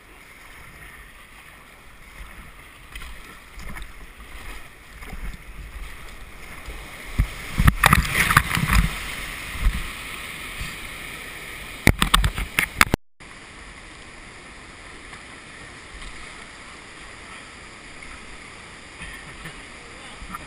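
Kayak running river rapids: water rushing and splashing against the hull and paddle, with loud splashes over the microphone about eight and twelve seconds in. The sound breaks off suddenly soon after, giving way to the steady rush of water pouring over a weir.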